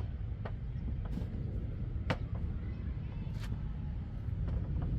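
Spark plug wires being handled and laid out on a table: a handful of short, sharp clicks and taps, spread over a few seconds, over a steady low rumble.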